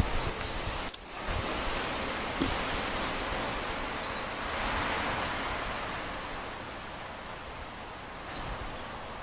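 Wind rustling through leaves as a steady hiss, with a bird's faint, short high chirps a few times.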